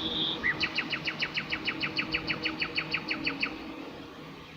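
Songbird singing: a short held whistle, then a fast run of about twenty identical quick notes, roughly seven a second, that stops about a second before the end.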